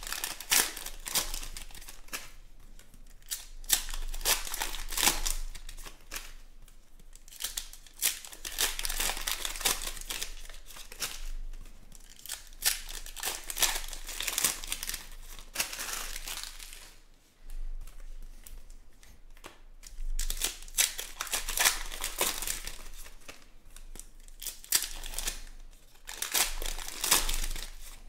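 Foil-wrapped baseball card packs being torn open and crumpled by hand: crinkling, tearing wrapper noise in repeated spurts, with a brief lull about two-thirds of the way through.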